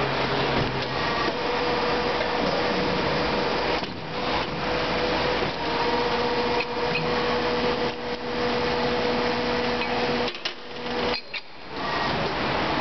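Plastic injection moulding machine running through its cycle: a dense, steady mechanical noise with a humming tone. The noise drops away briefly about four seconds in, and again for about a second and a half near the end.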